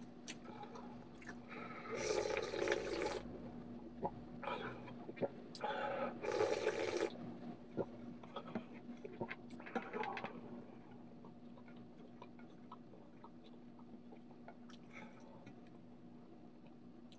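Ramen noodles and broth slurped off a plastic spoon in a few breathy bursts in the first ten seconds or so, with light clicks of the spoon against a stainless steel pan; after that only faint clicks.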